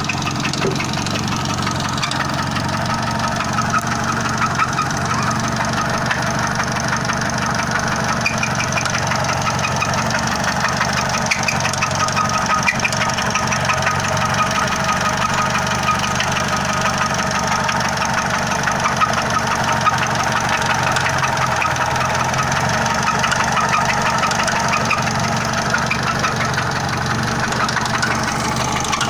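1999 Honda Civic engine running steadily with a metallic scraping noise, like iron rubbing on iron, that the owner cannot place.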